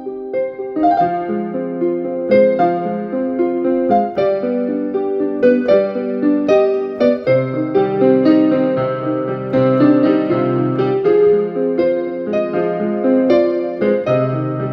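Digital piano being played: a flowing line of notes over sustained chords, with low bass notes joining about seven seconds in.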